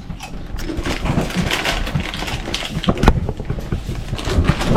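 Plastic snack packaging being handled: continuous crinkling and rustling with many small clicks and taps, and a sharper knock about three seconds in.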